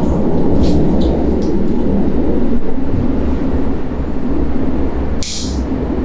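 Water running from a shower mixer tap, a steady rushing that starts abruptly. A brief higher hiss about five seconds in.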